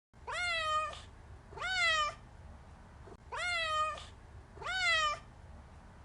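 Domestic cat meowing four times, in two pairs, each meow rising and then falling in pitch.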